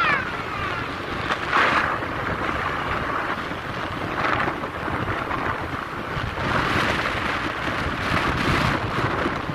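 Wind buffeting the microphone of a moving motorbike, a steady rushing noise that swells and eases in gusts, with road noise beneath.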